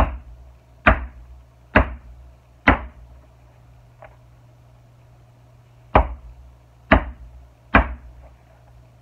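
Mallet striking a leather notching punch through leather into the board beneath, as the notches at the pattern marks are knocked out. Sharp knocks about a second apart: four, a short pause with a faint tap, then three more.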